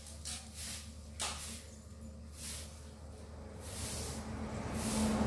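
Engine of a tiller rig running with a steady low hum, with a faint click about a second in. The engine grows steadily louder over the last second or two.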